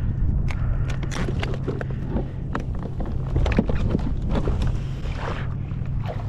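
Wind rumbling on the camera microphone, with many scattered knocks and taps on the plastic kayak as gear is handled and moved.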